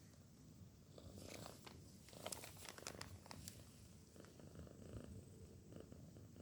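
A sleeping cat snoring faintly, a low rumble. Sharp clicks and crackles sound between about one and three and a half seconds in.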